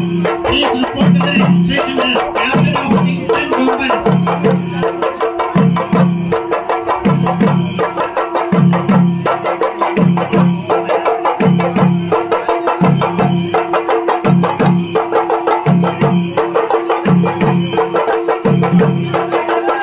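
Chenda melam: a troupe of Kerala chenda drums beaten with sticks, playing a fast, dense stick rhythm over a heavier beat that pulses roughly once a second.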